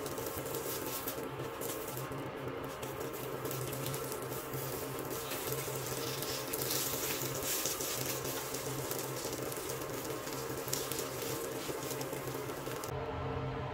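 Egg and okra omelette sizzling in oil in a rectangular nonstick pan, with light scrapes and taps of a plastic slotted spatula as it is folded over and turned. The sizzle drops away near the end.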